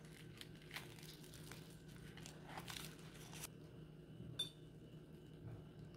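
Knife cutting through the crisp breadcrumb crust of a fried stuffed chilli: faint crunching and crackling for about three and a half seconds, then a single light clink about four seconds in.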